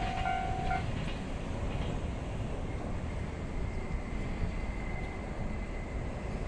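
Japanese level crossing warning bell ringing in a quick repeating pattern, cutting off just under a second in as the crossing clears after the freight train has passed. A steady low rumble follows.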